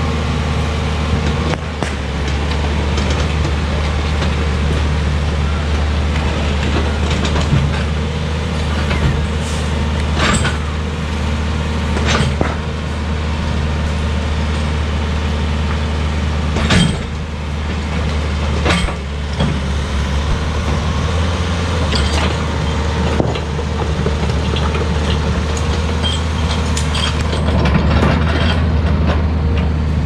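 Komatsu PC40 mini excavator's diesel engine running steadily under working load, with a scattering of sharp knocks and clanks as it digs out tree stumps.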